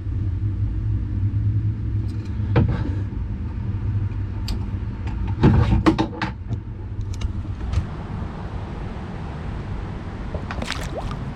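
Steady low rumble of handling and movement on the microphone in a kayak, broken by sharp knocks and clatter about two and a half seconds in and a louder cluster around six seconds, while a caught bass is handled for release.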